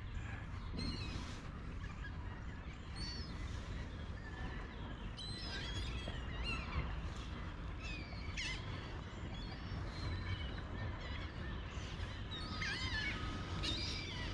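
Birds chirping and calling in many short, quick notes, some rising and some falling, over a steady low rumble.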